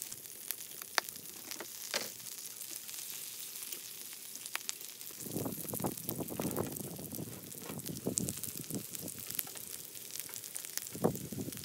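Pork belly pieces sizzling and spitting on a hot steel griddle pan: a steady hiss with constant crackling, which swells into louder bursts about five to seven seconds in and again near the end. There are a few sharp clicks in the first two seconds.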